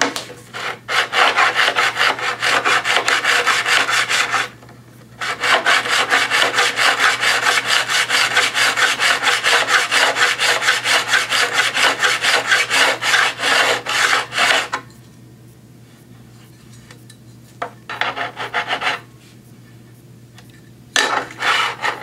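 Diamond hand hone rubbed in fast back-and-forth strokes along the steel edge of a guillotine paper cutter's fixed blade, held flat to sharpen it. There is a run of about four seconds, a brief pause, then a longer run of about ten seconds that stops about fifteen seconds in, with two short bursts of strokes near the end.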